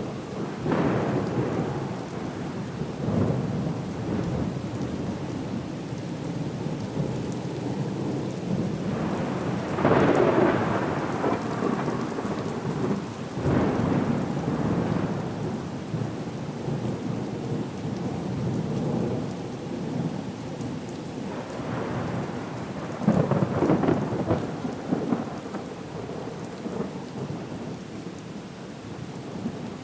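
Storm ambience: steady rain under rolling swells of rumbling noise, the loudest about ten seconds in and again around twenty-three seconds.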